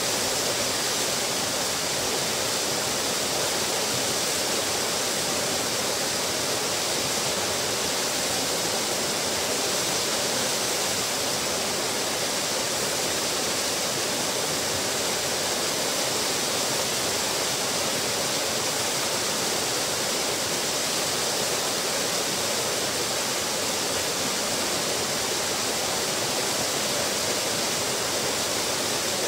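Small waterfall pouring over a ledge and splashing steadily into a pool below.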